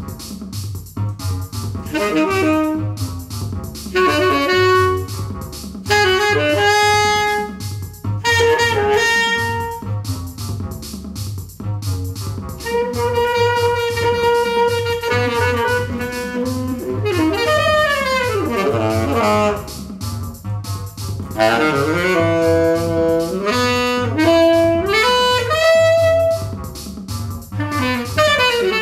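Instrumental music: a saxophone-like lead plays a melody of held notes with several sliding pitch bends over a steady pulsing bass beat.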